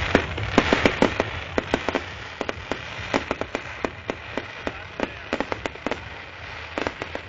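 Fireworks going off: a rapid, irregular string of sharp pops and crackles, densest in the first couple of seconds and thinning out after.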